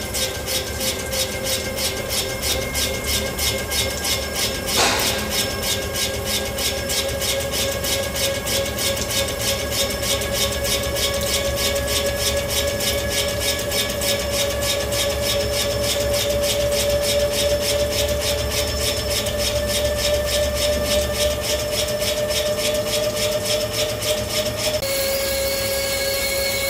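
CNC lathe cutting a large steel workpiece with a carbide turning insert under flood coolant: steady machining noise pulsing about three times a second, with a faint tone that rises slowly. A single sharp click about five seconds in, and the sound shifts abruptly near the end.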